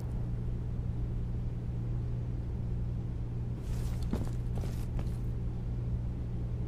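A steady low ambient hum, with a few faint rustles and a soft click about four seconds in.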